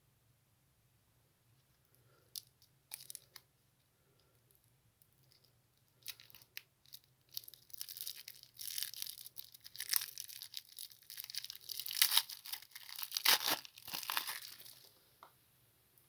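Plastic candy wrapper being crinkled and torn open. A few sharp crackles come about two to three seconds in, then from about six seconds a continuous run of crinkling and tearing builds up and stops near the end.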